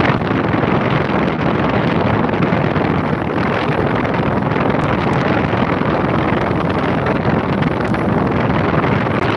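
Steady rushing wind noise from strongly moving air buffeting the microphone.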